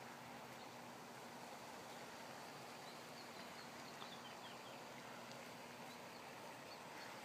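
Quiet outdoor background hiss with a faint steady hum, and a short run of faint high bird chirps about three to four seconds in.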